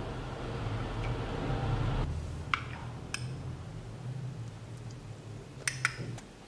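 Creamy fruit salad being stirred and scooped in a glass baking dish, a soft wet stirring noise that stops about two seconds in, followed by a few sharp clinks of a utensil against glass, the loudest pair near the end.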